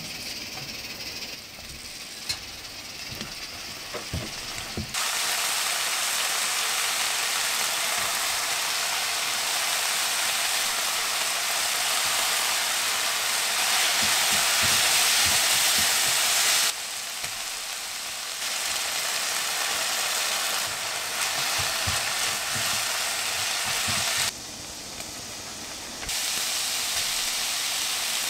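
Ground pork, onion and carrot sizzling in a frying pan while a spatula stirs and scrapes, with scattered light knocks against the pan. The sizzle jumps louder or quieter suddenly a few times.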